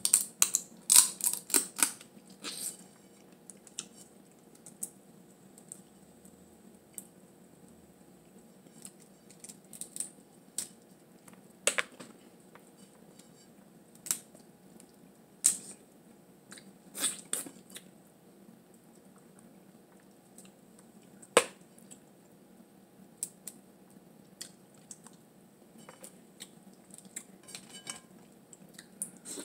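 Blue crab shell cracking and snapping as it is picked apart by hand at the mouth: a quick run of sharp cracks in the first couple of seconds, then scattered single cracks and clicks, over a faint steady room hum.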